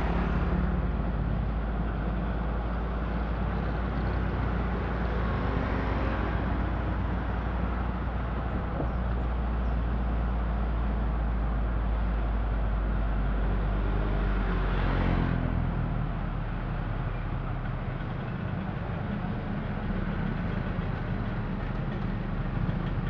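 Car driving on a town street, its engine and road noise a steady low hum. Two passing vehicles swell louder, about six seconds in and again around fifteen seconds; the second drops in pitch as it goes by.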